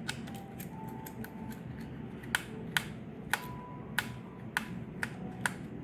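Screwdriver working the small screws of a laptop's processor heatsink: a run of sharp little clicks, about two a second from about two seconds in, with a few faint squeaks in between.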